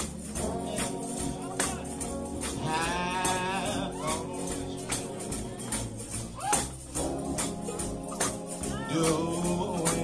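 Gospel music: a tambourine keeps a steady beat under sustained instruments and singing.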